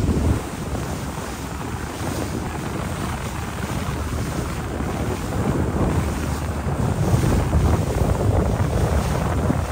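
Wind buffeting the microphone on a moving river cruise boat, a fluctuating low rumble with water noise, growing a little louder about halfway through.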